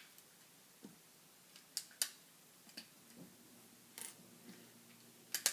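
Plastic LEGO pieces clicking and snapping as they are handled and pressed together: about ten sharp clicks at uneven intervals, the loudest pair near the end.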